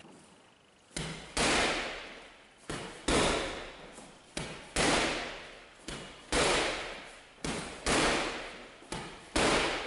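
Gloved punches landing on a Ringside heavy bag in pairs, a jab followed by a harder left hook, repeated six times at a steady pace of about one pair every second and a half. Each thud echoes in the gym.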